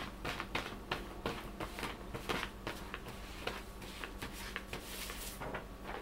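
Loose papers rustling and crinkling as a cat paws and pushes at them, in a run of quick, irregular scrapes.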